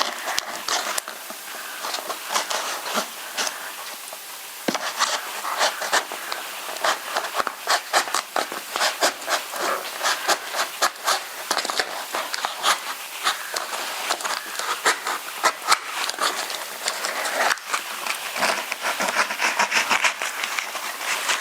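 Cardboard box and its plastic packing being opened by hand: a run of irregular crackling, rustling and tearing, with a short quieter stretch about three to four seconds in.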